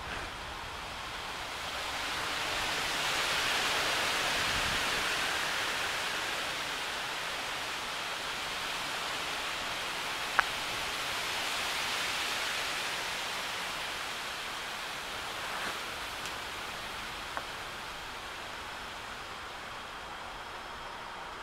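Rain falling steadily, growing heavier a couple of seconds in and then slowly easing. A single sharp click sounds about ten seconds in.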